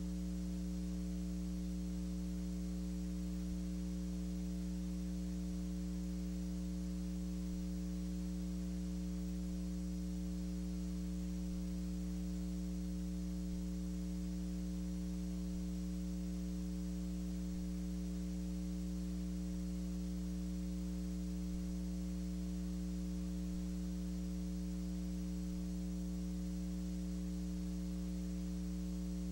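Steady electrical mains hum with a faint hiss, unchanging throughout: playback hum on an otherwise silent old film transfer.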